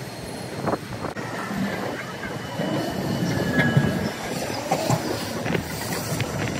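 Hiroshima Electric Railway low-floor articulated tram running past on curved street track, sped up to double speed. Rolling rumble with a few wheel clicks over the rails and thin wheel squeal on the curve.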